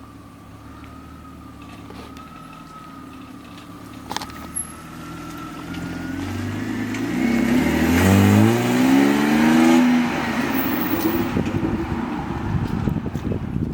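BMW 520i E39 straight-six through a drilled-out muffler: a steady low-speed note, then the engine is revved or accelerated about six seconds in, its pitch climbing to the loudest point, and easing off with a raspy crackle near the end.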